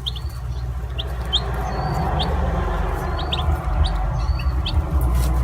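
Baby chicks peeping: short, high, rising cheeps, several each second, over a steady low rumble.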